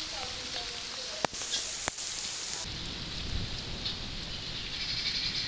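Steady rain falling and pattering on the ground, with two sharp taps about a second and two seconds in. The hiss turns duller about halfway through.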